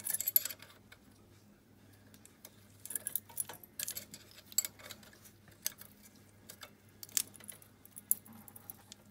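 Metal clicks and clinks of an open-end wrench and pliers on the valve-clearance adjuster of a 125 cc ATV engine's rocker arm, as the locknut is tightened while the adjusting screw is held. A quick cluster of clicks comes right at the start, then single clinks about a second apart, over a faint steady low hum.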